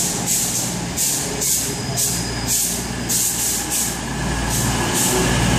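Class 221 Super Voyager diesel multiple unit pulling in and braking to stop at the platform. A low diesel hum runs under a hissing that swells and fades about twice a second.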